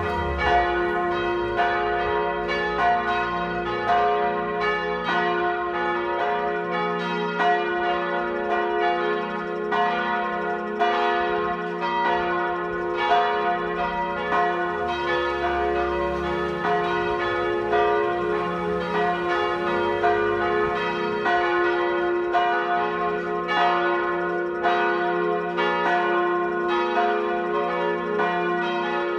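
Full peal (plenum) of church bells: all the bells in the tower ringing together, their strikes overlapping in no fixed order about every half second over a continuous ringing hum.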